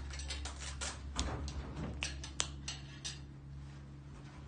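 A quick irregular series of small clicks and taps, the sharpest about halfway through: a small black bill box being handled and opened on a glass tabletop, over a low steady hum.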